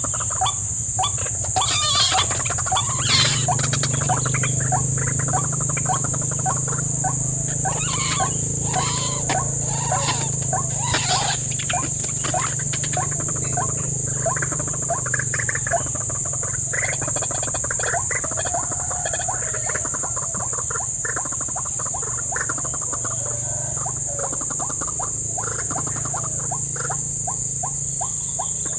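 White-breasted waterhen calls: a long, rapidly repeated series of short croaking notes, over a steady high-pitched buzz of insects.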